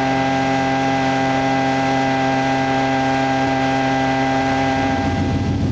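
Dust-storm blower running with a steady pitched drone over a rush of air, driving a simulated 60-mile-per-hour dust storm. Near the end the drone gives way to a rougher, gusting rush of wind.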